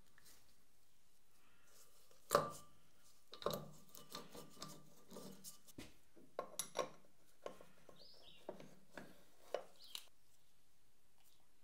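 Metal parts of a Procunier tapping head being handled and fitted together on a workbench: one loud clunk about two seconds in, then a string of lighter clicks and knocks.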